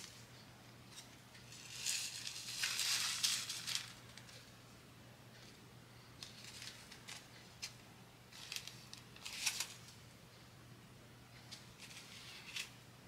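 Small plastic bags of diamond-painting drills being handled, crinkling in two short stretches, with scattered light clicks in between.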